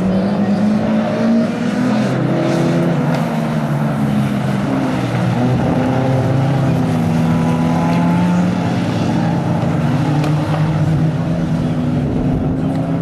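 Engines of a pack of small old saloon race cars running hard together. Several engine notes overlap, each pitch rising and falling as the cars rev and change gear.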